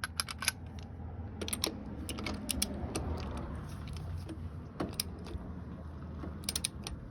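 Pittsburgh half-inch click-type torque wrench being ratcheted on a lug nut, short runs of ratchet clicks every second or two, over a steady low hum.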